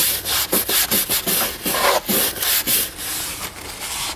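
Colourlock leather cleaning brush scrubbing foamed leather cleaner into a leather dashboard panel: quick, uneven back-and-forth scratchy strokes, a few each second, a little lighter near the end.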